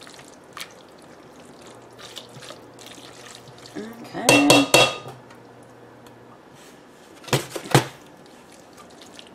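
Pasta being stirred in a stainless steel saucepan with a silicone spatula: soft scraping and squishing with small ticks, a louder clatter against the pan about four seconds in, and two sharp knocks of the spatula on the pan near the end.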